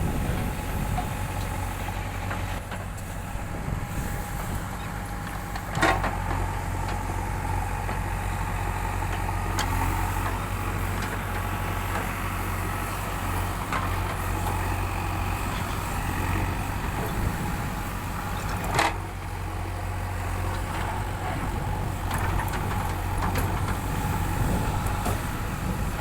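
Backhoe loader's diesel engine running steadily with a low rumble. Two sharp knocks stand out, about six seconds in and again about thirteen seconds later.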